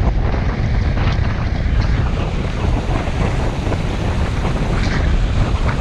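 Strong storm wind buffeting the microphone in a loud, low, churning rumble, over lake waves washing and splashing against the rocks of a stone jetty.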